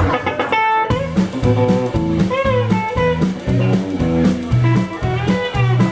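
Live band playing a blues-flavoured tune led by electric guitar. The guitar opens alone with a short run, then about a second in the rest of the band comes in with a repeating bass line and a steady beat, with some bent notes over it.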